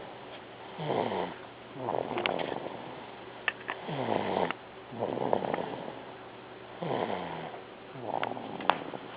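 Sleeping baby snoring: about six noisy breaths, each with a falling pitch, coming every second or two. A few sharp clicks fall between them, the loudest near the end.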